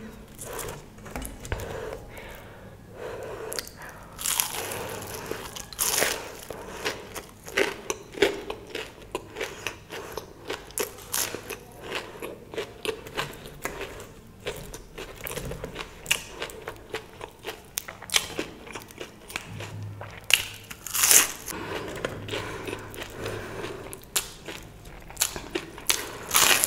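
A person eating crisp Indian food close to the microphone: crunchy bites and chewing, with many small crackles and a few louder crunches scattered through.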